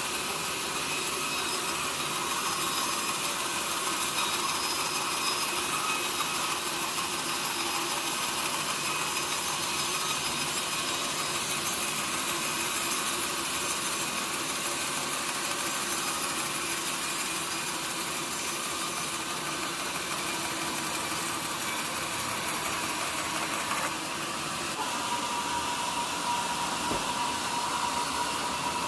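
Sawmill saw cutting through a mahogany log into planks, a steady hissing cut that dips briefly about three-quarters of the way in, then continues with a steady whine.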